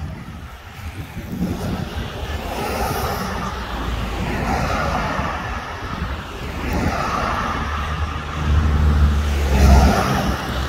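Cars passing slowly one after another, engines running over tyre noise on asphalt; the sound builds and is loudest about nine seconds in.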